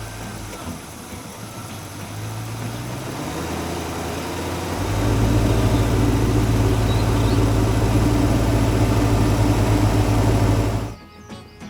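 Car engine running with a low, steady hum that builds gradually, becomes much louder about five seconds in, then cuts off suddenly near the end.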